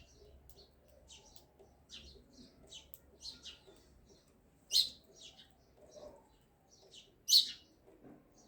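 Small birds chirping: a scattered string of short, high chirps, with two much louder ones past the middle and near the end.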